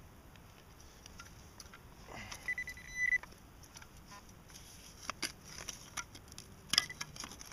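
Metal detecting pinpointer giving one steady high beep of about half a second, swelling at the end, as it signals metal in the soil. From about five seconds in, a serrated hand shovel cuts and scrapes into the forest soil with scattered crunches and clicks.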